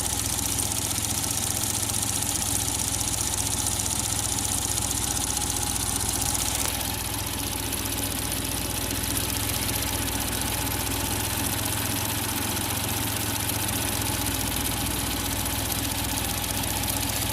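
Suzuki Jimny engine idling steadily with its newly replaced thermostat. About seven seconds in, the higher part of the sound shifts a little.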